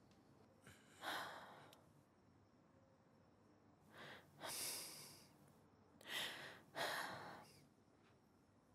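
Several soft breaths and sighs from a person, one about a second in and the rest between about four and seven and a half seconds in.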